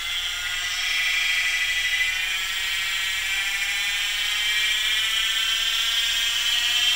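PM-25MV milling machine spindle running up from about 2000 toward 2500 RPM, a many-toned whine rising steadily in pitch. It runs quietly with no rattle from spindle play, the spindle and drive pulley locked together by a snug 3D-printed bushing.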